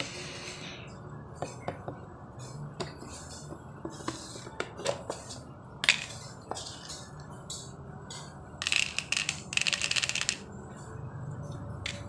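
Rose-ringed parakeet's beak and feet on a tiled floor: scattered sharp taps and clicks, a louder tap about six seconds in, then a short scratchy, rasping stretch about nine seconds in.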